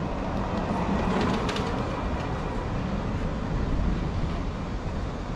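Outdoor street noise with wind rumbling and buffeting on the microphone: a steady, uneven low rumble.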